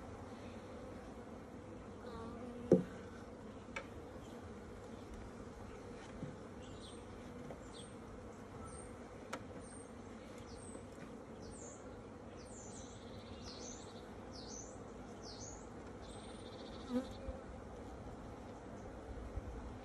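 Honeybees buzzing steadily around an opened hive. A sharp knock about three seconds in, and a few lighter clicks later, as the hive tool and frames are worked against the wooden boxes.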